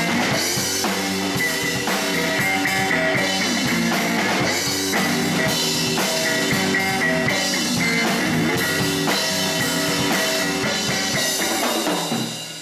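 Live blues band playing: electric guitar licks over electric bass and a drum kit. The band stops together about twelve seconds in, ending the song.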